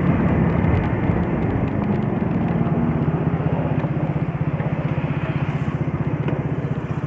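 Shineray Jet 50cc scooter's small single-cylinder engine easing off as the scooter slows and pulls in to the curb, settling about halfway through into an even, rapid idle.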